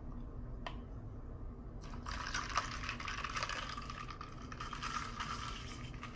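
A light click, then a drink being poured into a cup for about four seconds, starting about two seconds in, as matcha latte and coffee are mixed.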